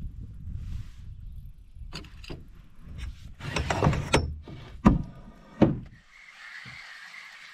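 Wind buffeting the microphone in a canoe, with a series of knocks and two sharp thumps about five seconds in. After that the rumble drops away to a steady hiss.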